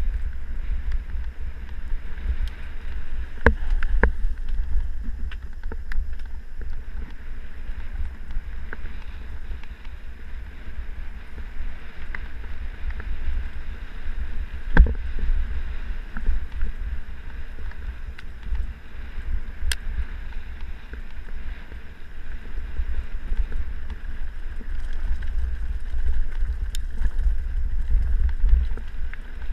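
Wind rumbling on the microphone of a camera riding a mountain bike downhill on dirt singletrack, with the bike rattling and several sharp knocks as it rolls over the rough trail.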